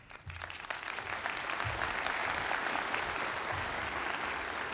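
Church congregation applauding, the clapping building up over about the first second and then holding steady.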